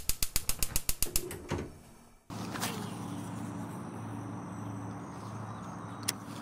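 An intro sound effect: a rapid run of about ten sharp, typewriter-like clicks. It stops suddenly and gives way to steady outdoor ambience with a low hum. Near the end comes a single sharp click as a baitcasting reel is handled.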